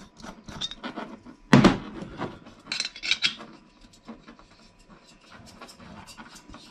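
Metal clicks and light scrapes of a camping stove's hose connector being screwed onto a screw-thread gas canister, with one louder knock about a second and a half in.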